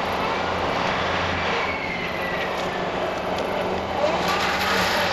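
A Takeuchi track loader's diesel engine and its FAE forestry mulcher head running steadily under load, with scattered cracks of wood debris being ground.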